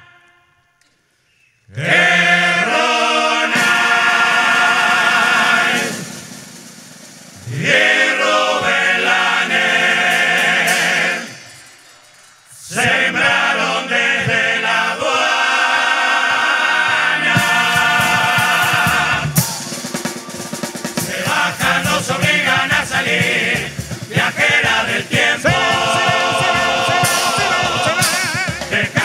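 Murga choir of men's voices singing together in harmony, opening after a brief silence and breaking off twice for about a second. About halfway through, a steady drum beat with snare drum comes in under the singing.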